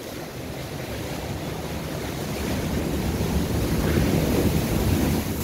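Ocean surf: a wave breaking and washing up the beach, the rush of water swelling to its loudest about four to five seconds in. Wind buffets the microphone underneath.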